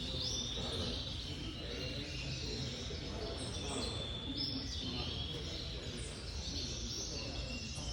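Gloster canaries chirping: many short, high calls, some sliding up or down in pitch, over a steady low hum.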